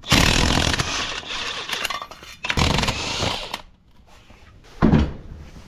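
Power impact wrench running in bursts, spinning lug nuts off a wheel: two long bursts, then a short one near the end.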